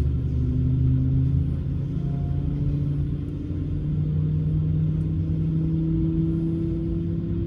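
Airbus A220-300's Pratt & Whitney geared turbofan engines heard from inside the cabin: a steady low hum with a few tones that rise slowly in pitch.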